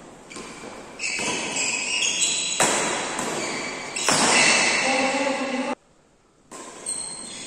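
Doubles badminton rally: rackets striking the shuttlecock and players' feet moving on the court, with some voices. The sound drops out abruptly for about a second near six seconds in.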